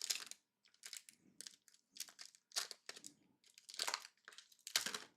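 Foil trading-card pack wrapper being torn open and crinkled by hand, in short irregular bursts of crackling.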